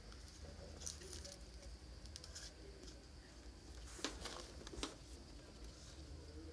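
Faint ticks and light rustling as thin wire and small parts are handled on a workbench, the sharpest tick about four seconds in, over a low steady hum.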